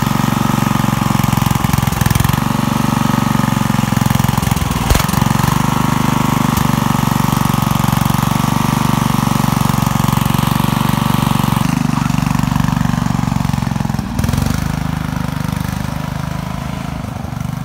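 Small vertical-shaft lawn tractor engine running steadily on a stripped-down riding-mower tractor. It gets quieter about twelve seconds in and again a couple of seconds later as the tractor drives away.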